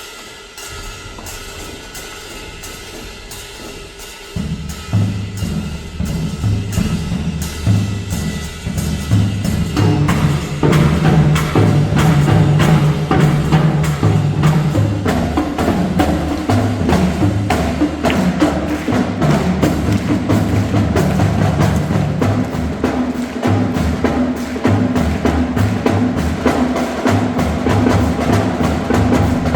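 Marching band music: a steady clicking percussion beat, joined about four seconds in by low notes and drums. The full band comes in louder around ten seconds.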